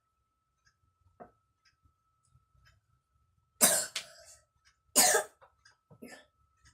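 A young child with a cold coughing twice, about a second and a half apart; the first cough comes in two quick strokes.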